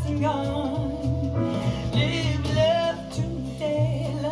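A recorded song with band accompaniment playing through a 1939 Makrophon full-range loudspeaker, picked up in the room by a phone's microphone.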